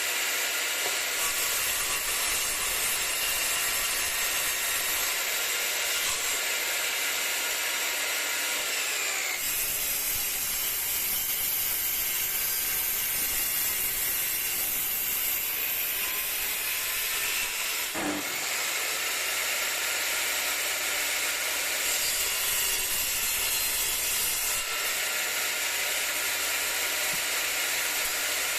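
Parkside PMTS 210 A1 portable table saw running, a steady loud whine with hiss, typical of wood being cut. The tone shifts a few times, with a brief sharp change about two-thirds of the way in.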